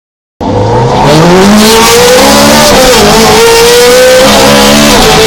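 Ferrari 430 Scuderia's V8 at full throttle, heard on board, cutting in about half a second in and revving up steeply. Its pitch drops sharply near three seconds and again near five seconds and climbs again after each, as with quick upshifts.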